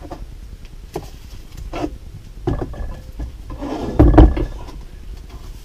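A heavy aluminium Lotus Twin Cam cylinder head being shifted and turned on a wooden workbench: a few light knocks, then a louder thud and scrape about four seconds in.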